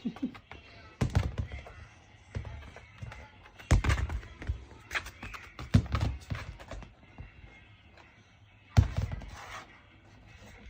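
Irregular thuds and knocks in quick clusters, the loudest about four and nine seconds in, from a Shiba puppy playing with a toy on the floor. Faint music sits underneath.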